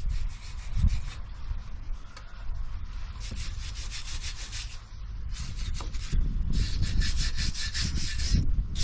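Rust being scraped off the steel underside of a Thwaites dumper by hand, in quick repeated scraping strokes, about five a second, with a pause in the middle.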